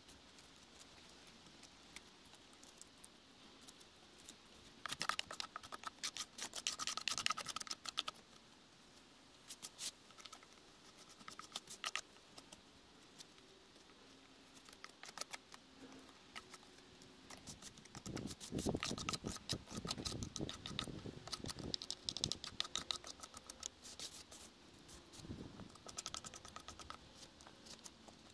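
Gloved hands rubbing and brushing along a rotten pine log, with small crackles and scratches from crumbling wood and bark. It comes in bouts: a dense crackling spell a few seconds in, and a longer, lower rubbing with dull knocks past the middle.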